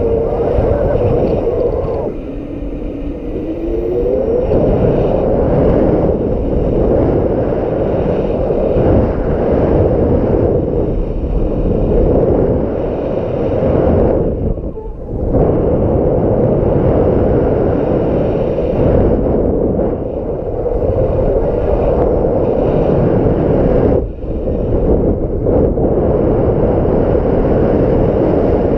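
Strong gusty wind buffeting the microphone in a loud, deep rumble, easing briefly twice, about fifteen and twenty-four seconds in. A short rising tone sounds through it a few seconds in.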